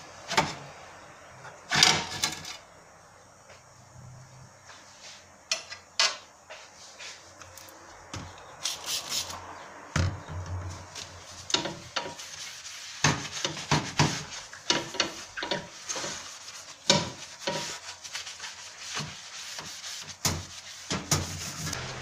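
A kitchen sponge scrubbing the soapy glass of a toaster-oven door in quick back-and-forth strokes. There are a couple of sharp knocks near the start, and the scrubbing becomes steady and dense from about the middle on.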